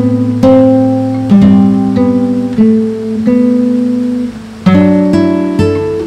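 Background music: an acoustic guitar strumming chords, each chord ringing out and fading before the next is struck, with a short drop in level about four seconds in before a fresh chord.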